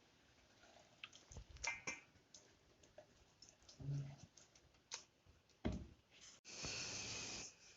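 Faint clicks and knocks of kitchen utensils being handled, with a couple of dull thuds and a short steady hiss near the end.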